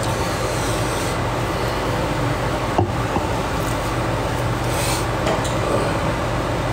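Steady room noise: a low hum under an even hiss, with one short click about three seconds in.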